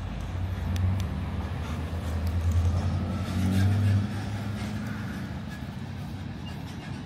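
A motor vehicle going by, its engine a low rumble that builds over the first four seconds and then fades, with people's voices around.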